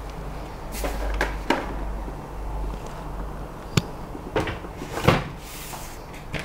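A Creality LD-001 resin 3D printer being lifted and set down on a metal baking sheet: a string of knocks and clunks. The sharpest knock comes just before the middle and the loudest about five seconds in.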